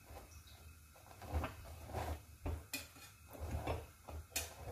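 Metal tongs clicking and tapping against a gas burner's grate and a maize roti as the roti is turned over the open flame: scattered faint taps, a few sharper ones near the end, over a faint low rumble.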